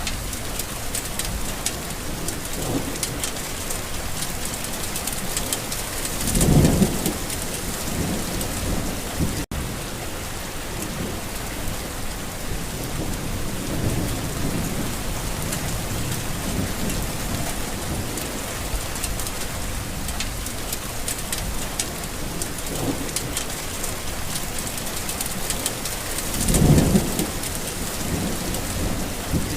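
Steady rain falling on a garden, a continuous hiss with dense pattering drops, under rolls of thunder. Two louder thunder rumbles swell about a quarter of the way in and near the end, with fainter distant rumbles between; a split-second dropout about a third in.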